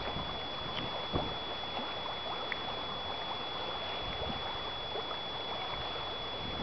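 Steady hiss of open water and light wind, with a few faint small splashes of lapping water.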